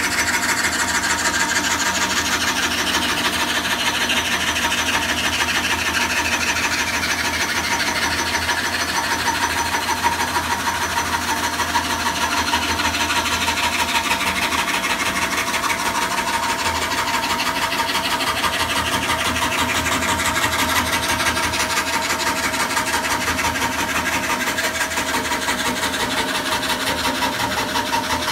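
Homemade drill-powered scroll saw running steadily, its fret blade sawing through thin plywood with a fast, even rasping over the steady whine of the cordless drill that drives it.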